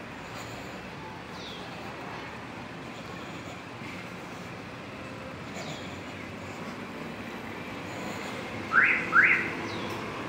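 Street ambience with a steady low hum and a few faint high bird chirps. Near the end come two loud, quick rising whistles in a row, and a car's engine draws closer.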